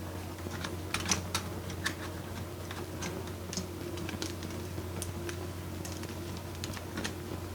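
Scattered light clicks and taps of PC components being handled and fitted together, irregularly spaced, over a steady low hum.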